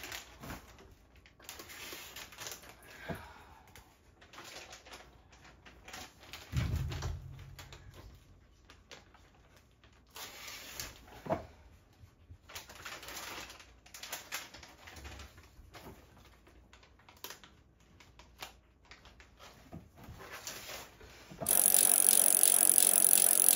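Plastic soft-bait packages crinkling and rustling as they are handled and hung on metal pegboard hooks, with scattered light clicks and one dull thump. Near the end, a much louder steady sound starts suddenly.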